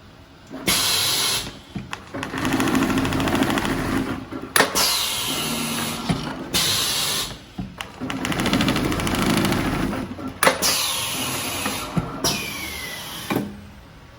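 A head-up computer pattern sewing machine stitching in two runs of fast, even needle strokes. Each run ends with a sharp click and a falling whine as the motor stops. Short hissing bursts come before each run and once more near the end.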